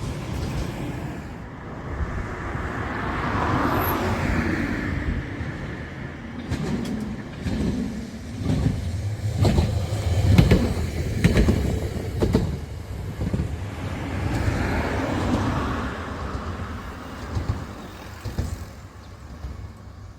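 Vehicles passing by: one swells and fades about three seconds in, and another near the end. In between, a heavier rumble comes with a run of sharp clattering knocks.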